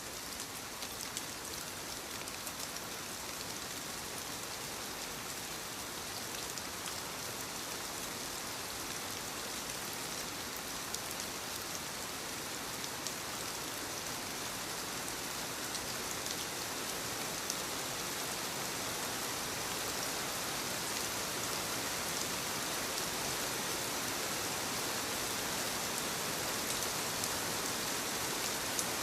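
Steady rain falling, an even hiss with scattered individual drop ticks, growing slightly louder over the last half.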